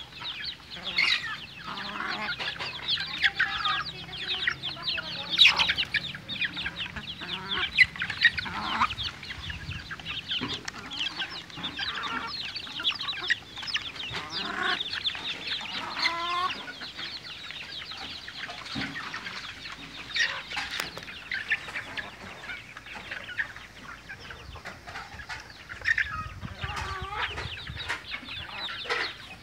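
A flock of native chickens clucking and calling continuously while they feed, many short high calls overlapping.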